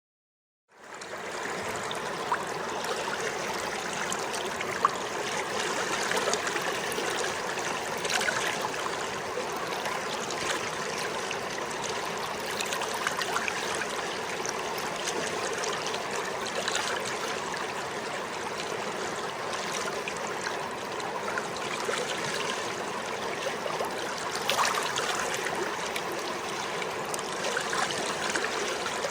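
River water flowing and splashing steadily over rocks, a continuous rushing with small splashes, starting about a second in.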